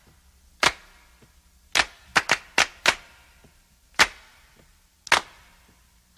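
Handclaps alone in an uneven, syncopated rhythm, about eight sharp claps each with a short echo, as a song's intro before the band comes in.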